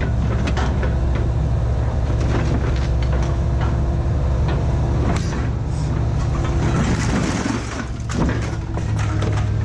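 A vehicle engine running steadily under many short clanks and rattles.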